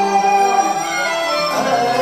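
Cantonese opera (yuequ) instrumental accompaniment: the ensemble plays a melodic passage of held, stepping notes between sung lines.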